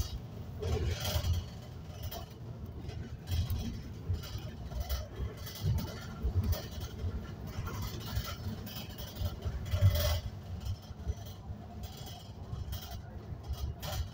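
Inside a moving bus: steady low engine and road rumble with irregular thumps and rattles, the heaviest jolt about ten seconds in.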